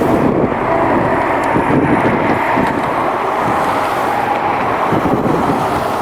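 Jet airliner's engines, loud and steady as the aircraft passes close by, with wind buffeting the microphone.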